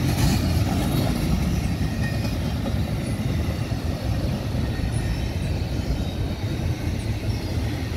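Empty intermodal well cars of a freight train rolling past, their wheels making a steady low rumble on the rails.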